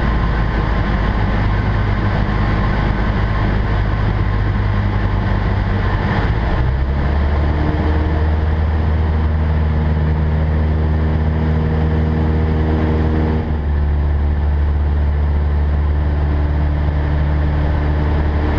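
Cessna 172N's four-cylinder Lycoming engine and propeller droning in the cabin. The engine note drops about six seconds in and then holds steady.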